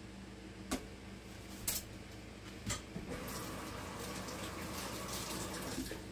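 Three sharp knocks of things handled at a kitchen sink, about a second apart, then a tap runs water into the sink for about three seconds, under a steady low hum.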